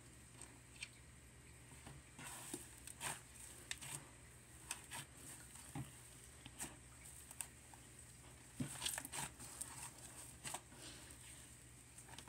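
Frozen yogurt slime being played with by hand, giving irregular sticky clicks and small pops, with a cluster of them near the start and another a little past the middle.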